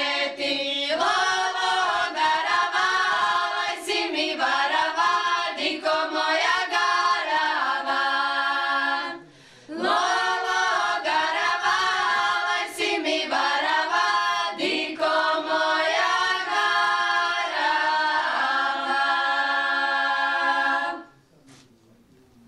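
Women's folk singing group singing a traditional Šokac song unaccompanied, in long sustained phrases. There is a brief break for breath about nine seconds in, and the song ends shortly before the end.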